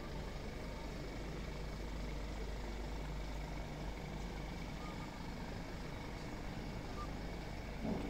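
Engine of a truck-mounted aerial work platform running steadily, a low even rumble, with a short knock near the end.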